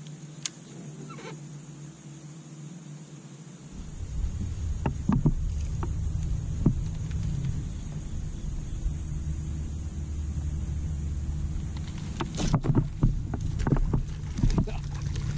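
Handling noise from a fishing kayak and its rod and reel: scattered clicks and knocks, busiest near the end, over a low steady rumble that starts about four seconds in.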